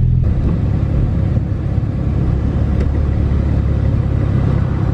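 Mitsubishi Lancer Evolution X's turbocharged four-cylinder engine and road noise, heard from inside the cabin while the car drives steadily on the highway. It is a steady low rumble with no revving.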